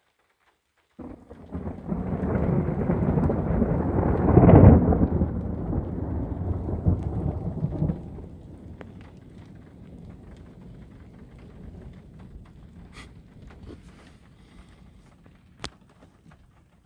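Thunder from a lightning strike: starts suddenly about a second in, rumbles loudest around four to five seconds, drops off near eight seconds and fades to a low rumble over the following seconds.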